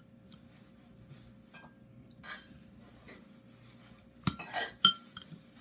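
Eating utensils clinking against a bowl: a few sharp clinks with a short ring, close together near the end.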